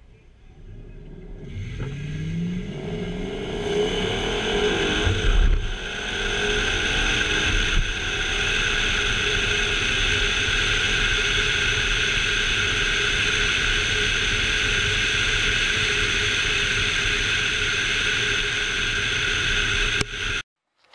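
2011 Ford Mustang GT's 5.0-litre Coyote V8 launching and accelerating hard through its six-speed manual gears on a quarter-mile run, rising in pitch with two brief dips at the shifts. It then gives way to a steady loud rush of wind over the outside-mounted camera at speed, which cuts off suddenly near the end.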